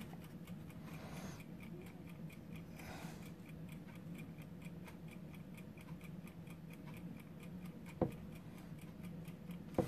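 Mechanical countdown timer ticking faintly and evenly, about four ticks a second, over a low steady hum. Two light knocks near the end.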